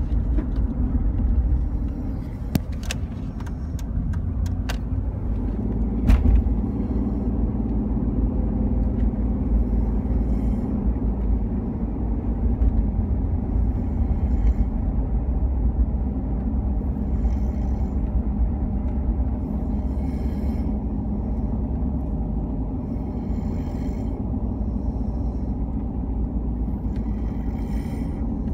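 Children snoring and breathing heavily in their sleep over a steady low rumble, with soft breaths every few seconds in the second half and a few small clicks early on.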